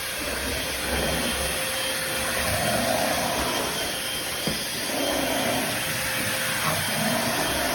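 Eureka corded stick vacuum running steadily, its sound swelling and easing every couple of seconds.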